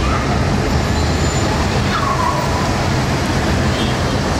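City street traffic: a steady rumble of car engines and tyres as vehicles drive past.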